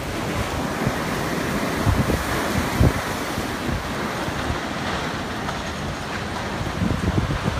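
Strong, gusting storm wind rushing through trees, buffeting the microphone with uneven low rumbles.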